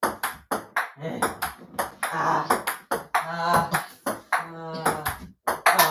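Table-tennis ball clicking off paddles and a mini table in a quick rally, about three to four hits a second. Voices call out over the rally in the middle.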